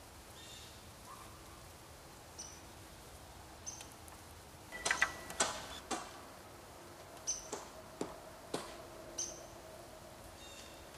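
Hand-cranked winch on an antenna mast base being turned to lower the antenna, giving a run of sharp metallic clicks and knocks about halfway through and a few more shortly after. Short high chirps come now and then.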